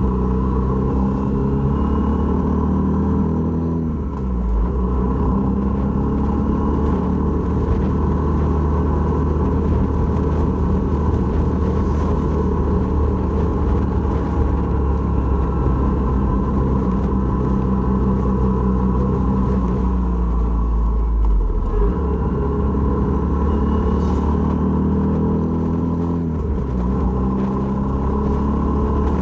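Honda MSX125's single-cylinder engine running under way over heavy wind rumble on the microphone. The engine note climbs and then drops at gear changes about four seconds in, about 21 seconds in and about 26 seconds in.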